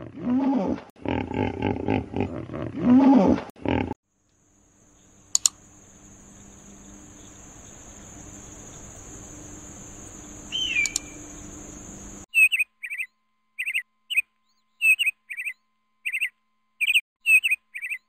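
Hippopotamuses grunting and honking loudly in the water for the first few seconds. Then a quiet stretch of faint hiss with a single short falling whistle, and finally a bird's short chirps repeated about twice a second.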